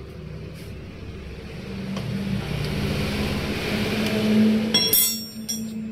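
A motor vehicle's engine, growing louder over a few seconds, then cut off suddenly about five seconds in, where metal tools clink.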